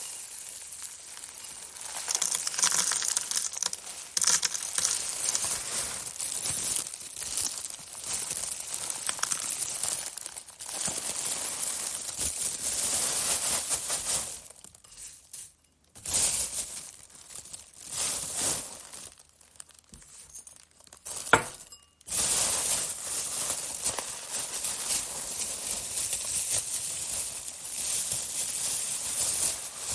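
Dry oats falling onto a surface: a dense rattling patter of many small flakes landing at once, which thins out and stops briefly a couple of times about halfway through before carrying on.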